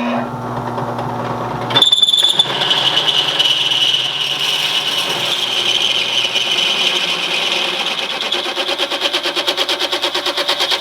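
Electric power saw cutting lumber. It runs for about two seconds on its own with a steady hum, then changes to a harsher, rasping sound with a fast pulse as it bites into the wood, and keeps cutting.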